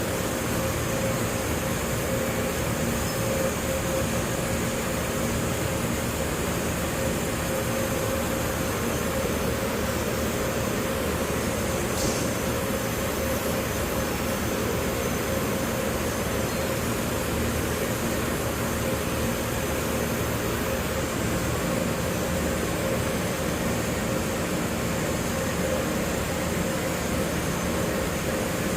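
A steady machine hum with a constant mid-pitched tone and a low drone underneath, unchanging throughout, with one faint tick about twelve seconds in.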